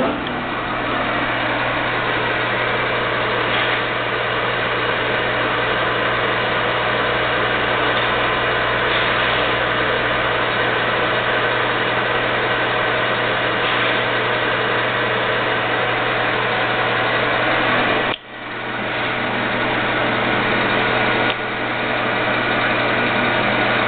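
Vectrax 1440 bench lathe running under power with a steady hum. About three quarters of the way through it cuts out suddenly and starts straight back up, building up again within about a second, then runs on a little quieter.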